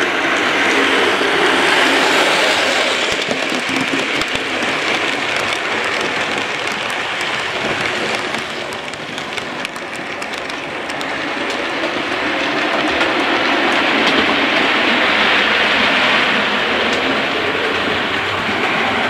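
OO gauge model locomotive running along the layout track: a steady rumble of wheels and motor with fine rail clicks. It fades away about halfway through and builds again as the train comes back round.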